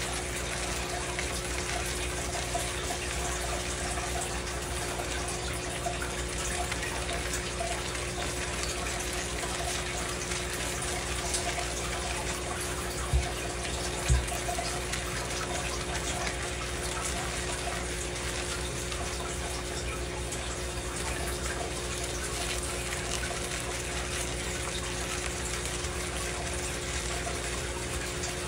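Tap water running steadily into a sink, with a faint steady hum under it. Two short dull knocks sound about halfway through.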